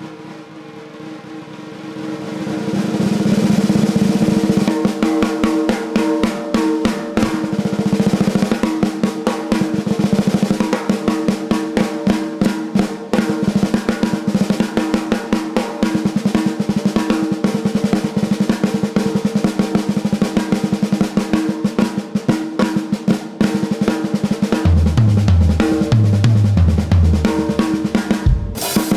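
Snare drum roll on a 14x6.5 Joyful Noise Luminary snare, swelling from soft to loud over the first few seconds and then held as a dense, fast roll. Near the end a bass drum joins with a run of kicks, and a loud hit lands just before the end.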